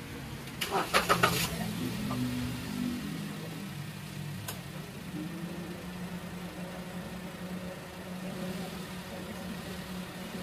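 Car engine cranked by its starter on a homemade 12.8 V LiFePO4 battery pack: a second of quick cranking strokes, then the engine catches, revs up briefly and settles into a steady idle. The start shows the pack can deliver the cranking current.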